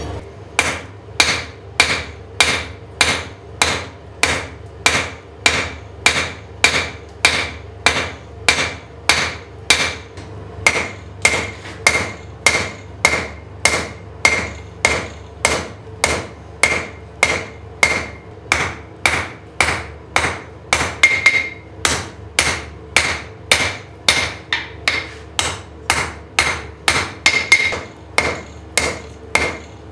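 Blacksmith's hand hammer striking hot steel bar in a steady rhythm of about two blows a second, each blow with a short metallic ring, over a steady hum.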